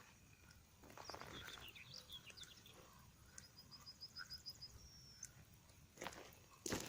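Faint outdoor ambience with small birds chirping; one bird gives a quick run of about eight short high notes midway. Near the end come two short rustling knocks.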